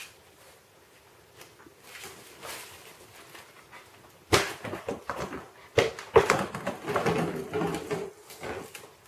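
A husky puppy and a ferret tussling around a clear plastic storage tub on a tile floor. It is faint at first, then from about four seconds in come sharp knocks against the tub and scrabbling and scuffling.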